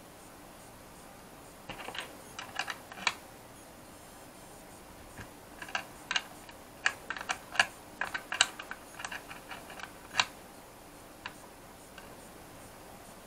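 Pliers and a small spanner clicking and tapping on the brass nut of an antenna connector being tightened into a plastic remote-controller case. The sharp, irregular clicks come in a short cluster about two seconds in and a busier run in the middle.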